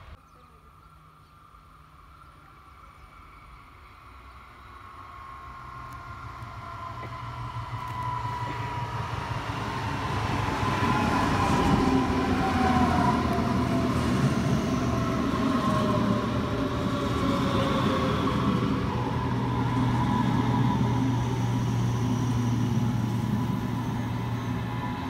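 DB S-Bahn electric multiple unit coming into the station, getting louder as it nears, with a falling whine as it slows. Once it stands, a steady low hum remains.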